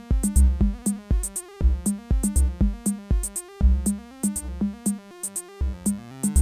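Live techno jam on hardware synthesizers and drum machines, with a Roland MC-707 groovebox among them: a steady kick and hi-hat beat under a sequenced, stepping synth line. The kick drops out for about a second around five seconds in, then comes back with the bass.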